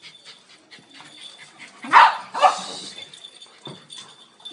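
Dog barking twice in quick succession about two seconds in, during rough play among several dogs.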